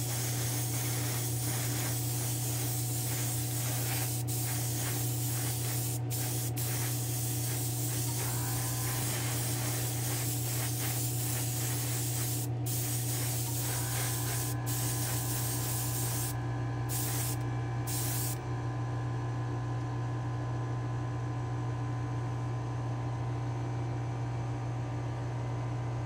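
Airbrush spraying 2K urethane clear coat onto a diecast truck body: a steady hiss with brief breaks, thinning after about two-thirds of the way to two short bursts, over a steady low hum.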